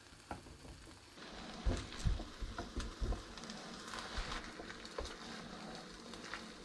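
Omelette sizzling in a frying pan, with a few dull thumps and sharp clicks as the pan and spatula are handled. The frying hiss rises about a second in.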